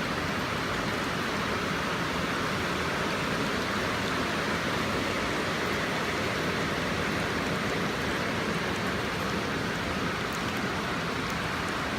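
Steady rush of water pouring and splashing from an aquascape's waterfall feature.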